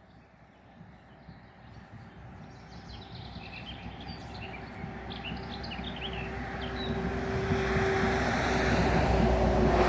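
Small birds chirping in quick short calls, while a steady low hum and a rushing noise grow louder, loudest near the end.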